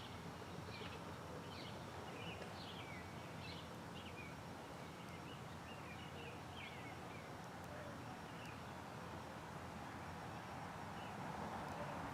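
A small songbird chirping repeatedly, short high notes about two a second that fade out past the middle, over a steady outdoor background hiss.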